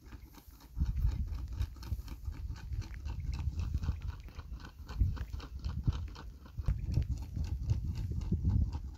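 Footsteps through ripe, dry wheat, the stalks brushing and crackling in quick irregular clicks, over uneven low rumbling thuds from the walking.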